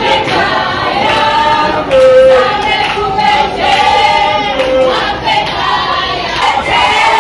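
A group of people singing together in chorus outdoors, many voices holding notes and stepping between pitches, with a crowd around them.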